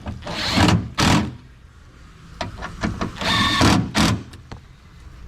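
T30 Torx screws being driven in to fasten a car trunk latch: several short bursts of tool noise about half a second each, with scattered sharp clicks between them.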